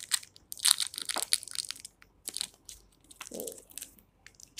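Clear plastic of a homemade fidget toy crinkling and crackling as fingers squeeze and pinch it, in several short bursts.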